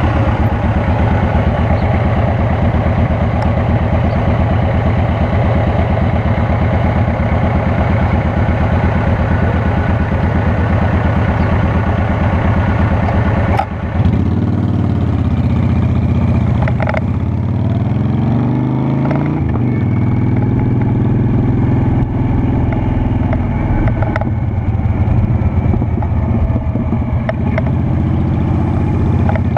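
Honda Shadow Spirit 750's V-twin engine running steadily under way. About halfway through there is a brief dip, then the engine pitch falls and climbs a few times before settling again.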